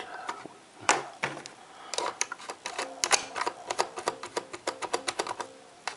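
Hand-cranked plastic disc repair unit being turned to buff a scratched CD, its mechanism giving a rapid, uneven run of clicks and rattles with a faint whir underneath.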